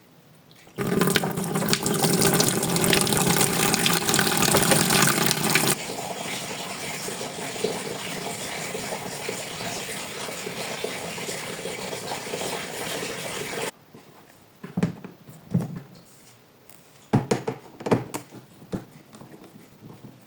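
Water running hard for about five seconds, then more gently until it stops abruptly; afterwards a few knocks and clicks.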